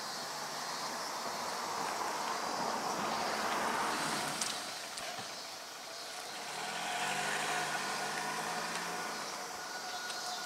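Road traffic with cars passing: a rush of tyre and engine noise swells and fades about three to four seconds in, and a second vehicle passes a few seconds later, its engine a low hum.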